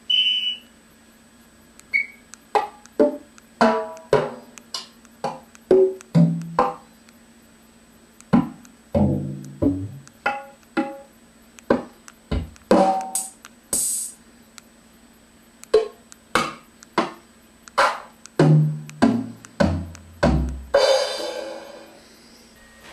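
Drum and percussion samples from the Caxixi phone drum app triggered one at a time as instruments are tried out: a string of short separate hits, some pitched, running through hand-percussion and drum-kit sounds such as tabla, kick, snare and hi-hat, with several deep tom hits and then a long cymbal wash near the end.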